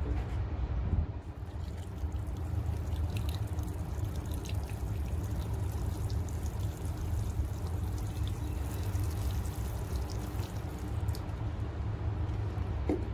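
Water showering onto tomato plants and potting soil in a planter, a steady pouring patter with scattered drips, over a low rumble.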